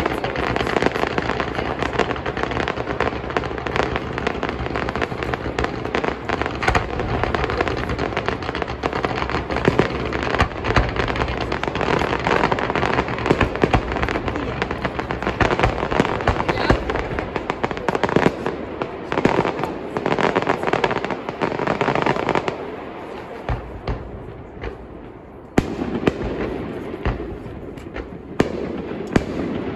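Aerial fireworks display: rapid, overlapping bangs and crackle. They thin out and go quieter about 22 seconds in, then a sudden sharp bang about three seconds later starts a further run of bursts.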